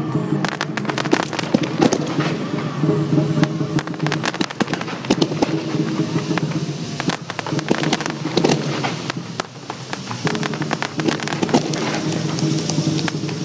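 Mid-level fireworks going off: a dense, irregular run of sharp pops, crackles and bangs from shells and ground fountains, over a steady low hum.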